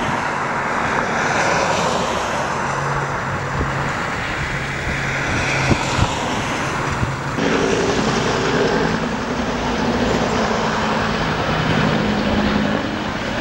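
Firefighting aircraft engines droning, a steady low hum over a rushing noise, with the hum shifting abruptly to a higher, stronger tone about seven seconds in.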